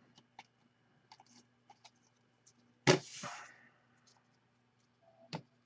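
Trading cards being flipped through in the hands: small scattered clicks of card edges, with one louder snap about three seconds in followed by a brief rustle, and another click near the end.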